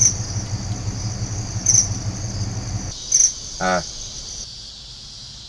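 Insects chirping in a steady high-pitched drone, with a louder chirp about every second and a half. A low hum underneath cuts off about three seconds in, and a brief vocal sound follows.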